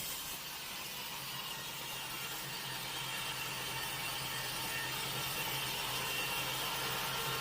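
Sawmill saw cutting through a log: a steady machine hum under a rushing cutting noise that grows slowly louder.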